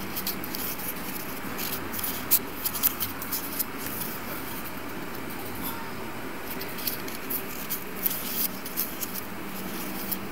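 Pages of a small handmade paper booklet being handled and turned: crisp crackling clicks of the paper in two spells, over a steady faint hiss.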